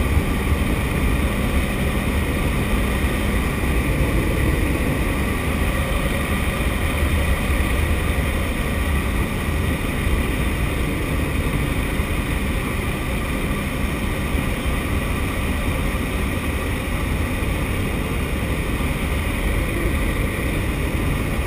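Steady drone of a jump plane's propeller engine in flight, mixed with wind rushing past the open cabin door.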